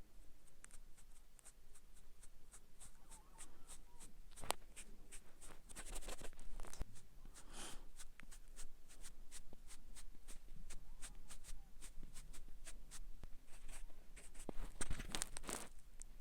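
Cosmetic applicator stroked quickly and lightly over skin as makeup is put on, about three soft scratchy strokes a second. Now and then a longer, louder swish stands out, the loudest near the end.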